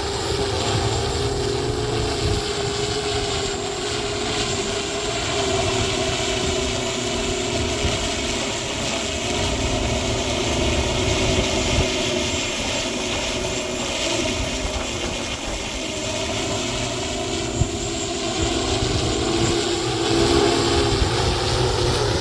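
Propellers of the BBA QC1, a small VTOL aircraft, humming steadily in flight, the pitch wavering slightly. Strong wind rumbles on the microphone underneath.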